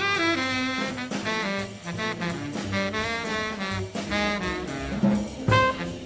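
Recorded bebop jazz quintet: baritone saxophone and trumpet play fast, quickly moving lines over double bass.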